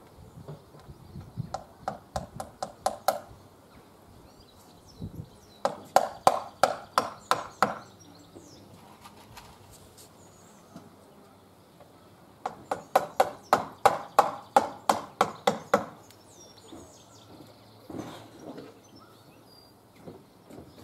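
Hammer knocking nails in to fix a PVC trim board, in three quick runs of strikes about five a second, the last run the longest.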